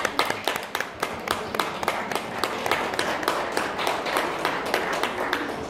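A small audience clapping: scattered hand claps, several a second, that thin out near the end.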